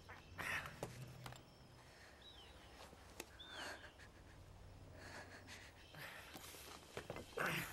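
A woman's frightened breathing: a few short, breathy gasps spaced out over several seconds, the loudest near the end, over a low steady hum. Two faint chirps come in the first half.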